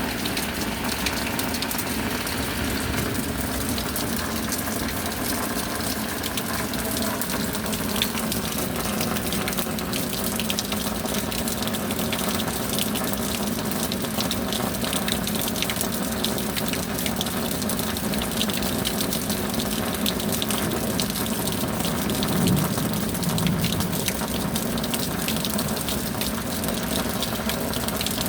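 Rain falling steadily: an even hiss thick with small drop impacts, with no change in strength.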